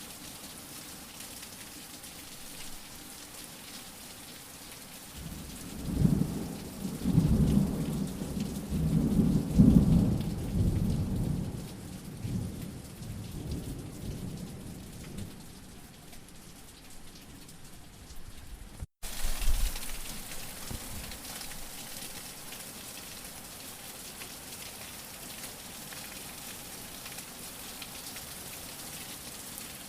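Steady rain falling, with a long low roll of thunder from about six to thirteen seconds in. The sound cuts out for an instant about two-thirds of the way through.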